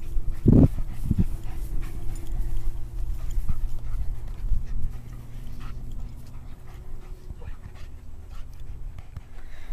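A dog panting during rough play with a person, with two loud low thuds about half a second and a second in.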